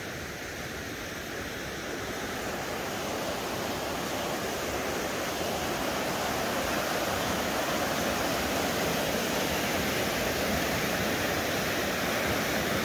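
Rushing water: a steady noise of flowing river water that grows gradually louder over the first several seconds, then holds.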